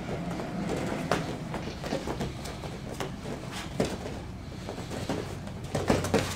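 Light MMA sparring: irregular thuds and slaps of half-speed punches, kicks and knees landing on small gloves and bodies, with bare feet on the mat, over a steady low hum. The sharpest knocks come a little before four seconds in and again near the end, during a clinch with knees.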